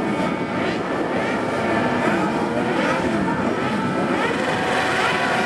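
Many Kartcross buggies' motorcycle engines running together on the starting grid, their overlapping notes rising and falling as drivers blip the throttles.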